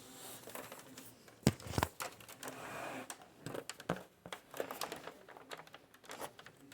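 Plastic back cover of a Dell Inspiron One 2320 all-in-one being handled and pressed into place: scattered clicks, knocks and rustling scrapes of plastic, with two sharper clicks about a second and a half in.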